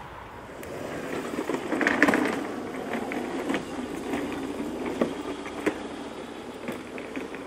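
Small hard wheels of a trolley case rolling over paving stones: a steady rumble with frequent clicks and knocks, loudest about two seconds in.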